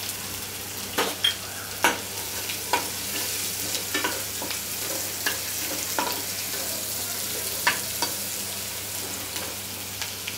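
Crushed garlic and mustard seeds sizzling steadily in hot oil for a tempering (phodni), stirred with a metal slotted spoon. Scattered sharp clicks come as the spoon knocks and scrapes the pan.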